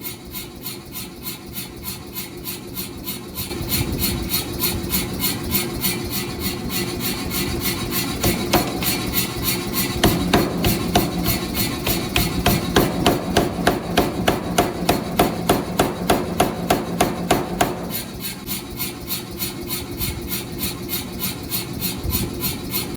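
Power hammer striking hot steel in a fast, even rhythm of blows over a steady motor hum, as the railroad-anchor steel is drawn out for a cleaver. The blows grow louder a few seconds in and are heaviest in the middle stretch.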